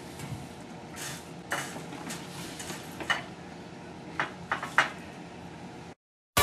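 Spoon clinking against a cereal bowl while eating, a handful of separate sharp clinks spread irregularly, the loudest a little before the end. The sound then cuts out abruptly.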